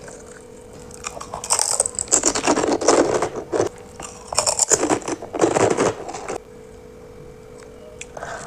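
Crisp food bitten and crunched close to the microphone, in two spells of crackly crunching of about two seconds each, with a faint steady hum underneath.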